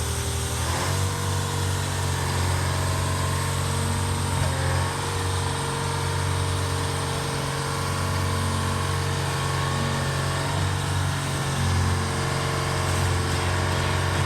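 Diesel locomotive engine running steadily; its note rises about a second in, then holds.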